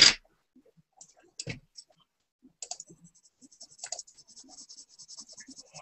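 Coloured pencil scratching on paper in quick, short shading strokes, starting about two and a half seconds in, after a few scattered light clicks.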